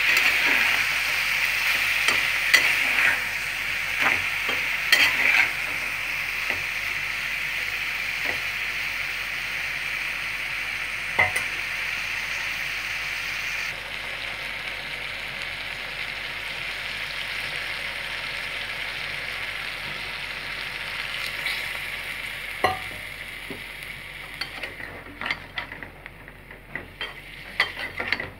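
Moringa drumstick pieces, green beans and tomato sizzling in a frying pan while a spatula stirs them, with scattered scrapes and taps of the spatula on the pan. The sizzle fades toward the end, leaving mostly spatula taps and scrapes.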